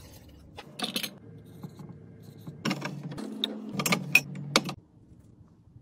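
Glass juice bottles with plastic caps clinking and knocking against each other and the shelf as they are handled and set in a fridge. A few knocks come about a second in, then a busier run of clinks, and all stops shortly before the end.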